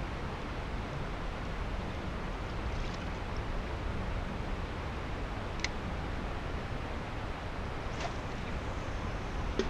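Steady outdoor rushing noise of wind and water, with a few faint clicks a little past halfway and near the end.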